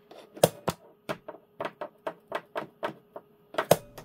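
A run of about a dozen sharp, irregularly spaced clicks and taps, roughly three a second, over a faint steady hum.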